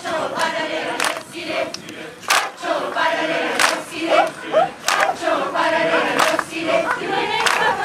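Large mixed-voice choir singing a choral arrangement of Kraó native chants, with sharp hand claps punctuating the song about once a second.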